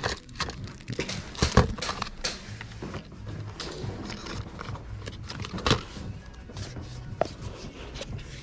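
Irregular clatter and light knocks of small objects being handled and set down while a box is unpacked, over quiet background music.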